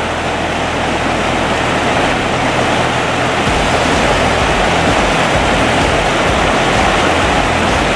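Mountain river rapids rushing over rocks, a steady, unbroken water noise.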